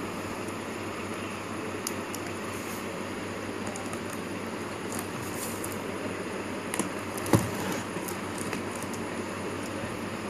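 Cardboard printer box being handled: faint scattered clicks and rustles over a steady background hiss, with one sharper tap about seven seconds in.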